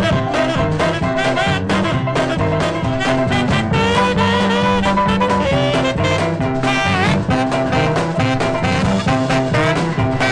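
Background swing music with brass, playing at a steady beat.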